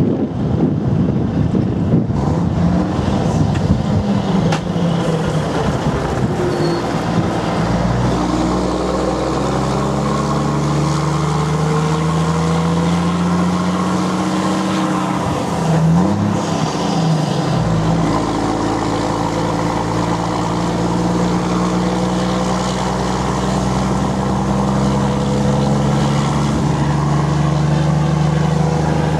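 Volvo FH12 truck's six-cylinder diesel running loud through an open exhaust, pulling through the gears. Its note rises, dips and climbs again at a gear change about sixteen seconds in, then holds steady. Wind and road noise fill the first several seconds.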